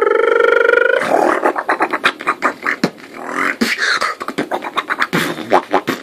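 Beatboxing warm-up. A held vocal tone rising slowly in pitch breaks off about a second in, then a quick, irregular string of percussive mouth clicks and drum sounds follows.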